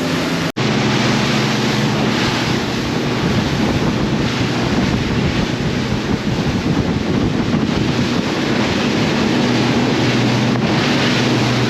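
Sea Hunt center-console boat running at speed: a steady outboard engine drone under heavy wind buffeting on the microphone and rushing water off the hull. The sound drops out briefly about half a second in.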